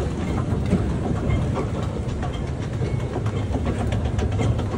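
Underground metro station noise while riding an escalator: a steady low rumble and hum with scattered light clicks.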